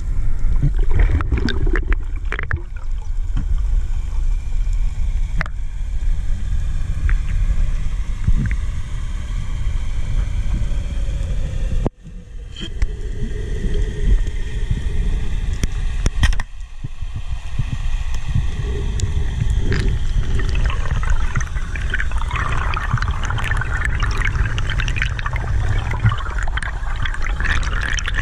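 Underwater ambience through a GoPro's waterproof housing: a steady low rumble of water moving against the case, with scattered clicks. It cuts out sharply twice in the middle, and a dense fine crackle builds in the second half.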